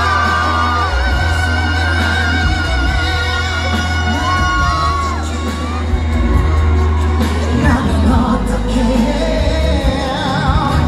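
Live pop music in a concert hall: a male voice holds long, wavering sung notes over a backing track with a heavy bass line for about the first half. After that it moves into a beat-driven stretch with sharp percussive hits.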